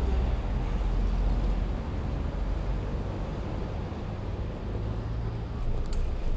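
Street traffic: a motor vehicle's engine running with a low, steady sound that is loudest in the first couple of seconds, over a general traffic hum. A few faint clicks come near the end.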